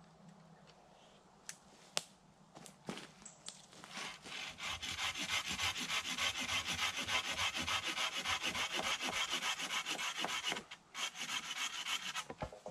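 A hand saw cutting through a wooden log with fast, even back-and-forth rasping strokes, about four or five a second. A few sharp wooden knocks come first. The strokes stop briefly about two-thirds of the way in, then go on again.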